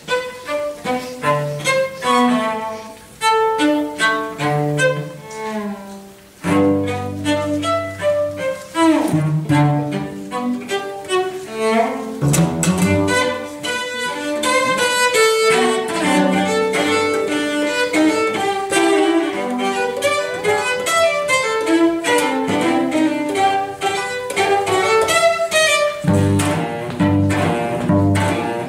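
Cello quartet playing: four cellos bowing a busy passage of many short notes, with a stronger low part coming in about six seconds in and a regular pulsing low figure near the end.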